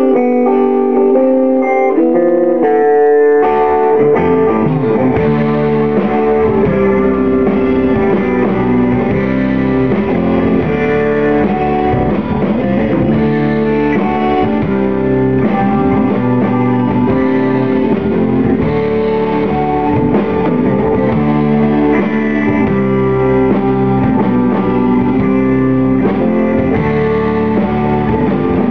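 A rock band playing a song live in a rehearsal room, with electric guitar, electric bass, drums and keyboard. It opens with a few melodic notes; the bass and drums come in about three and a half seconds in, and the full band plays steadily from there.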